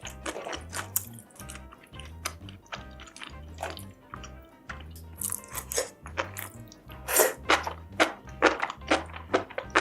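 A person chewing and crunching food close to the microphone, with many short, sharp mouth sounds that grow louder and more frequent in the second half. Background music with a steady bass beat plays underneath.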